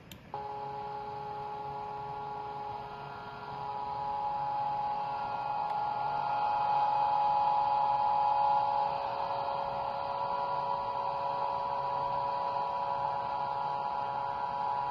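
Vibratory stress relief exciter, an electric motor with an eccentric weight clamped to a welded steel plate, running and shaking the workpiece. It makes a steady hum of several tones that starts abruptly, swells louder a few seconds in and eases back slightly past the middle.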